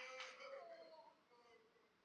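Near silence: a faint pitched sound and a couple of faint clicks fade out within the first second.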